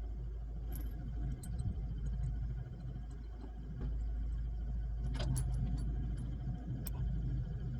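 A steady low rumble with a few light, sharp metallic clinks.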